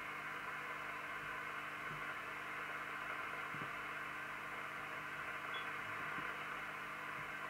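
Steady hiss from a Team Lancaster UK FM CB radio's speaker, with a faint low hum underneath, while the receiver's first IF transformer is being tuned during alignment.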